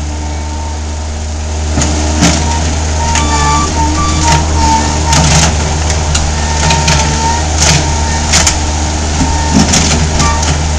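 Mini skid steer engine running steadily under load, with a high wavering whine and a series of short clunks and scrapes as the machine works.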